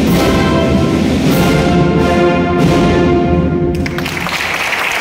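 A wind band of brass and woodwinds plays the closing chords of a Spanish processional march, with accented strokes about every second and a quarter. The music breaks off about three-quarters of the way through, and applause starts right after.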